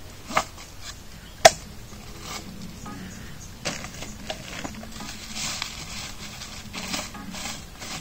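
A camping cook set of mess tins being handled and unpacked from its small bag: two sharp knocks within the first second and a half, the second the loudest, then a run of lighter clicks and rustling.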